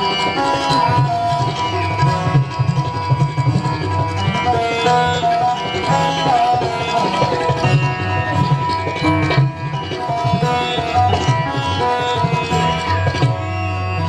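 Live Indian classical instrumental: a nagma melody in teentaal, raag Madhuvanti, played on a Roland Fantom X6 keyboard, with tabla strokes keeping the rhythm throughout.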